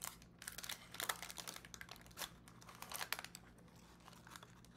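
Knife cutting through and prying up a slice of flaky, crumbly pot-pie crust: a run of irregular crisp crackles and clicks, densest in the first three seconds, then thinning out.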